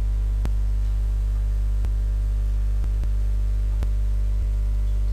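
Steady low electrical mains hum, with a few faint clicks scattered through it.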